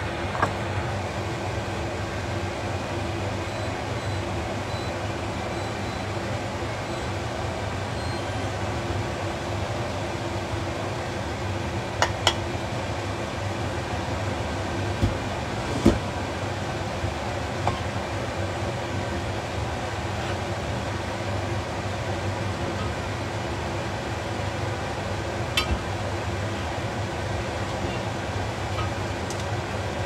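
Kitchen extractor fan running with a steady whoosh and low hum. A few light knocks of a cooking utensil against a pot come about twelve, sixteen and twenty-five seconds in.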